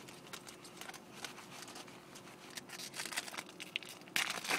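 Crinkling and tearing of a Topps Chrome football card pack's wrapper as it is handled and torn open: a run of small irregular crackles that thicken as it goes, with a louder crackle a little after four seconds.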